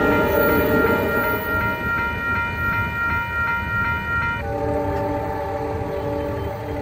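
Grade-crossing warning bell ringing at about three strokes a second, stopping about four and a half seconds in. The departing train's air horn then sounds a steady chord.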